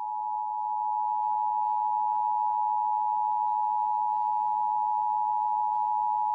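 Emergency Alert System attention signal: a loud, steady two-tone alarm tone (853 Hz and 960 Hz sounded together) that starts sharply and holds without a break, signalling that an emergency message follows.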